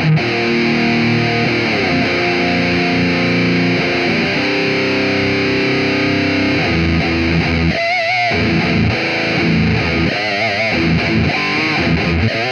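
Electric guitar played through distortion: held chords for the first half, then lead notes with wide vibrato from about eight seconds in.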